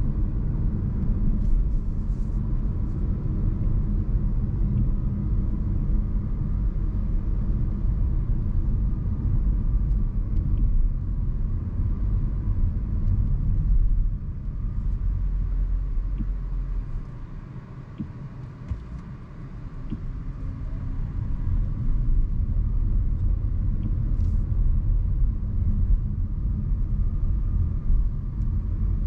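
Steady low road and tyre rumble of a 2024 Renault Symbioz E-Tech Full Hybrid being driven. The rumble eases off a little past halfway and builds back up a few seconds later.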